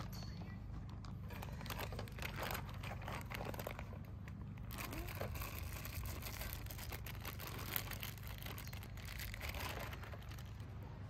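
Plastic zip-top bags crinkling and rustling in irregular crackles as they are opened and squeezed to empty food into a pot.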